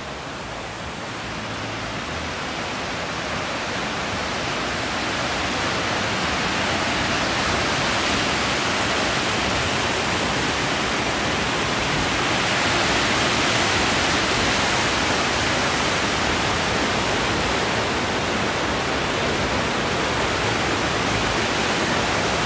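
Glacial meltwater of the Aare river rushing over rapids in the gorge, a steady roar of white water that grows louder over the first several seconds and then holds.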